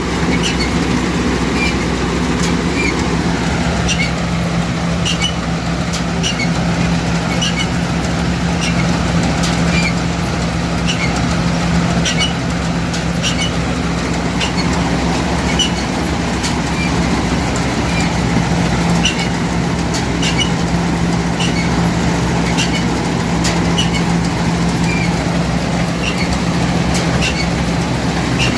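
Rice combine harvester running stationary with its threshing drum, fans and sieves all engaged: a steady engine-and-machinery hum with a light regular tick about every three quarters of a second.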